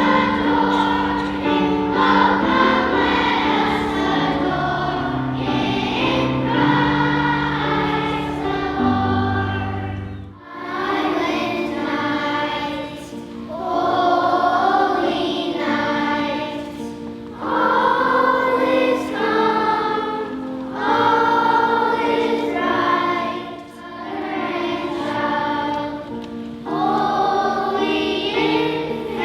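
School choir singing a Christmas piece, with held low notes stepping down beneath the voices for the first third before a short break, then the choir sings on.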